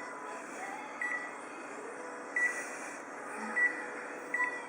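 Short electronic beeps, four at uneven intervals, over a steady machine hum: keypresses on a photocopier's control panel.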